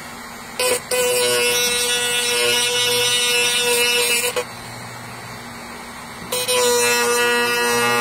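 Handheld rotary tool with a small grinding stone running at high speed, a steady high-pitched whine, grinding down the tip of a homemade lock pick. It runs for about four seconds, stops for about two, then starts again.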